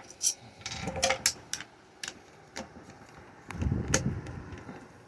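Metal fan-motor parts (the stator and back motor shell) clicking and clinking as they are handled and pulled apart, with a few sharp clicks and two spells of duller rubbing and handling noise.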